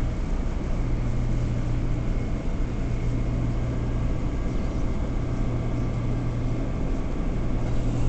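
Steady low hum and rumble inside an R179 New York City subway car, holding at an even level.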